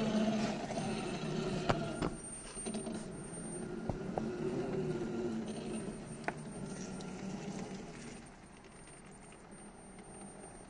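Electric motor and geared drivetrain of an Axial SCX10 III rock crawler whining, the pitch wavering as it crawls over rock, with a few sharp knocks along the way. The whine dies down after about eight seconds.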